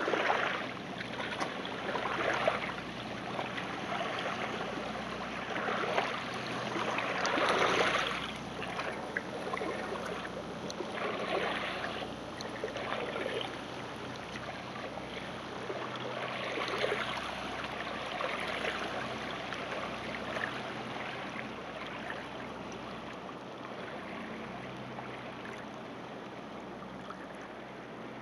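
Water rushing and lapping in uneven surges, loudest in the first eight seconds and then easing off, over a faint steady low hum.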